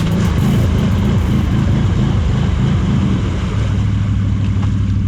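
ATV engine running under way, its pitch rising and falling with the throttle for the first couple of seconds, then holding steady.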